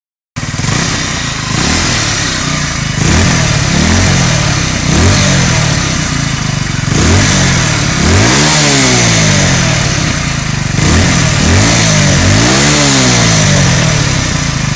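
Honda CBR125R's single-cylinder 125 cc four-stroke engine idling and being blipped through a series of short revs, each rising and falling back to idle, with two bigger revs in the second half. The sound starts abruptly at the beginning.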